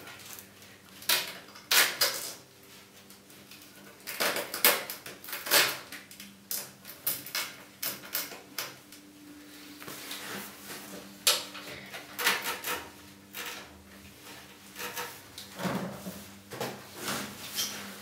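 Nylon zip ties being ratcheted tight around a PC's 24-pin power supply cable while the cables are handled: irregular bursts of sharp clicks and rattles, busiest about four seconds in and again around twelve seconds.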